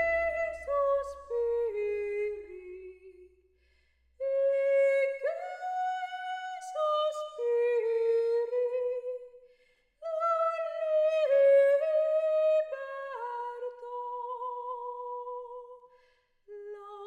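A high woman's voice singing a wordless melody with no accompaniment, in three long phrases that each step down in pitch: a sirens' song.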